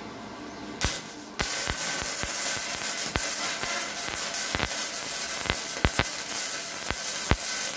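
Gasless flux-cored wire welding (E71T-GS, 1.0 mm wire) with a Redbo MIG-120 inverter welder. After a short click, the arc strikes about a second and a half in and runs with a steady crackling sizzle broken by sharp pops.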